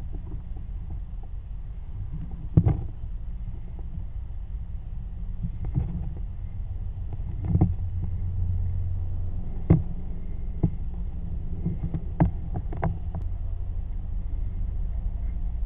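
Low rumbling handling noise with scattered knocks and scrapes as a drain inspection camera's head and cable are pushed along a grease-coated drain pipe.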